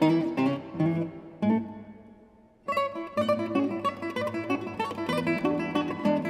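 Solo nylon-string classical guitar playing quick plucked notes. About a second and a half in, a chord rings and fades almost to silence; about a second later a new passage of rapid notes begins.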